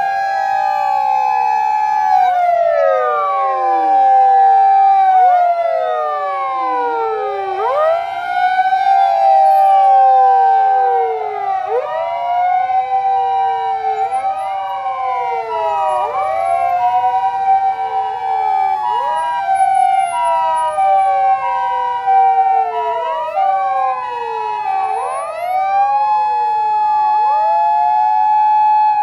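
Sirens of several Japanese emergency vehicles sounding at once: rising-and-falling wails repeating every couple of seconds, out of step with one another. From about twelve seconds in until near the end, a two-tone siren alternates between two pitches.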